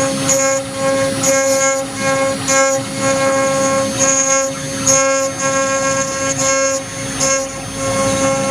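Acctek AKM6060 CNC router spindle running with a steady whine while its engraving bit cuts metal. A squealing cutting sound comes and goes every half second to a second as the bit moves in and out of the workpiece on its passes.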